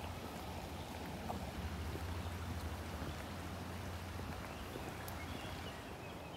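Steady rushing outdoor noise, like a river flowing beside the path, over a low rumble.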